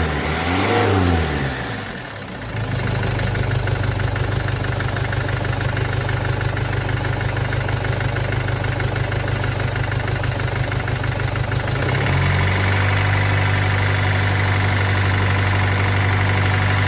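Mercedes E-Class engine starting and then idling steadily, presumably after its cylinder head rebuild. A rising-then-falling sweep in the first two seconds gives way to an even, fast-pulsing idle, and about 12 s in the note steps to a steadier, slightly higher idle.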